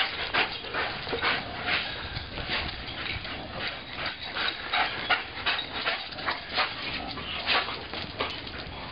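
Greyhound panting hard after running, a run of short breaths about three a second.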